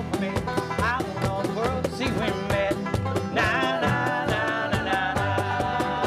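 Acoustic bluegrass band playing an instrumental passage before the vocals: strings strummed and picked in a steady rhythm, with a melody line sliding over the top.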